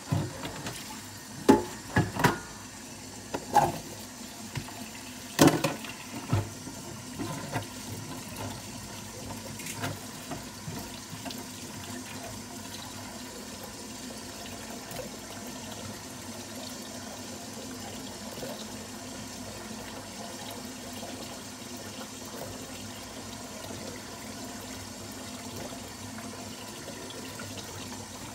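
Kitchen tap running as potatoes are rinsed in the sink, with several sharp knocks in the first few seconds, then steady running water.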